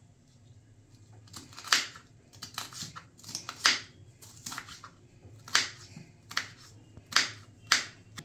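Kitchen knife cutting a capsicum (bell pepper) into small pieces on a chopping board: about a dozen crisp, irregular cuts, starting about a second and a half in.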